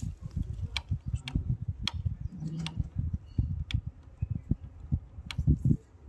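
Scattered sharp metallic clicks from a Hero Passion Pro's drive chain and front sprocket being worked by hand, over frequent low, dull thumps; the loudest thumps come near the end.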